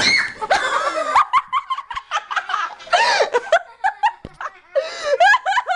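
Several people laughing hard in repeated bursts and giggles, with a thump right at the start.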